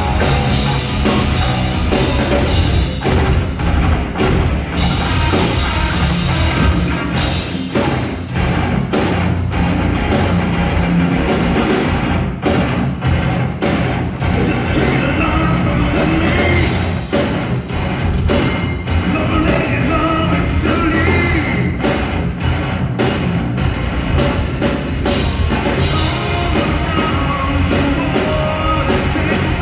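Heavy metal band playing live on stage: distorted electric guitars and bass over a drum kit, with a singer's voice.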